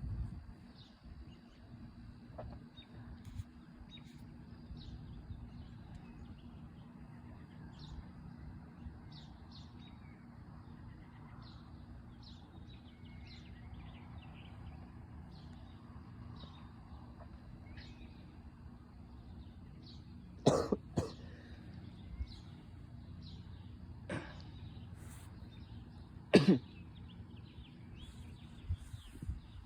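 Quiet outdoor ambience: a steady low hum with scattered faint bird chirps, broken by a few loud coughs in the last third.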